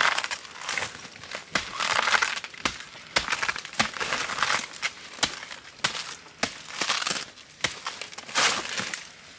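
Irregular crunching and crumpling with sharp snaps, in several rustling bursts, like dry material being crushed or broken by hand or underfoot.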